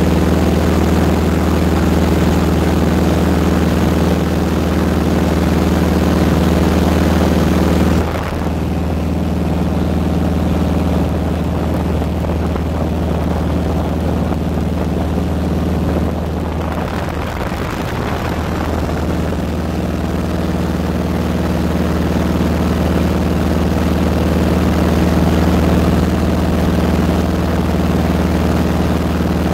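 Steady drone of a small high-wing propeller airplane's engine and propeller, heard from inside the cabin. About eight seconds in it turns duller and wavers for roughly ten seconds, then comes back to its full steady tone.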